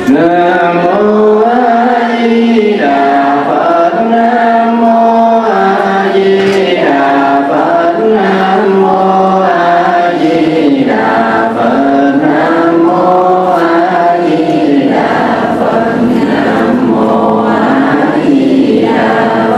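A group of voices chanting in unison in a slow, sung style. Each phrase is held for a couple of seconds and slides gently between pitches: Vietnamese Buddhist chanting of the kind used in Buddha-name recitation (niệm Phật).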